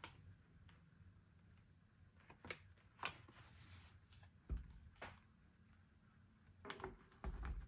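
Faint handling sounds of a leather trucker wallet: a few soft clicks and rustles as the leather panels are flexed and the wallet is folded shut in the hands, over quiet room tone.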